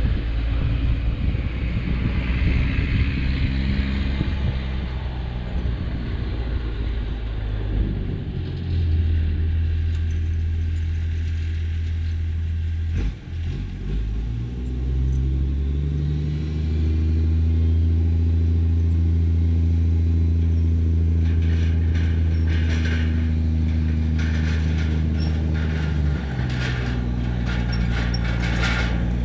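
Kato 35 mini excavator's engine running as the machine is worked, its note stepping up under load about a third of the way in and again about halfway, with a short dip between. Near the end a run of metallic clanks and rattles joins the engine.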